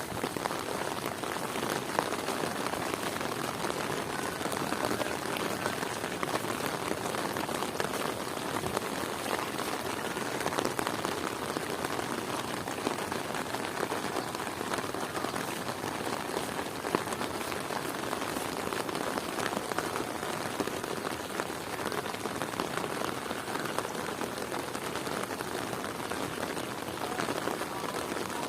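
Heavy rain falling steadily, with a dense patter of close drops.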